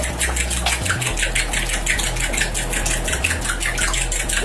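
Egg-and-milk batter being beaten by hand in a glass bowl: a fast, even rhythm of wet clicks and splashes, about eight a second.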